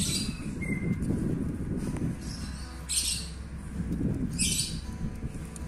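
Birds chirping in several short bursts a second or so apart, over a steady low outdoor rumble.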